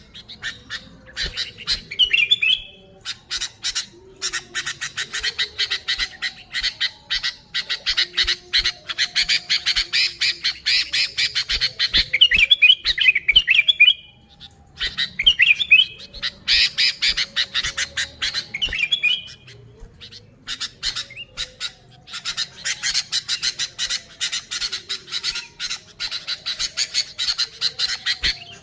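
Sooty-headed bulbuls (kutilang) calling excitedly: long runs of rapid, harsh chattering notes broken by short bubbly whistled phrases, pausing briefly about halfway and again about two-thirds of the way through.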